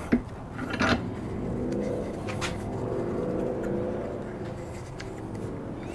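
A low, engine-like hum with several even pitches that swells over a second or two and slowly fades. A few light metal clicks in the first couple of seconds come from bolts and conduit straps being fitted together by hand in a bench vise.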